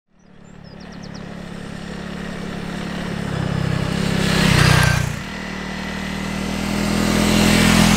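Honda CRF300L's single-cylinder engine running as the trail bike rides toward and close past, growing steadily louder. The sound then drops away and builds again as the bike approaches a second time.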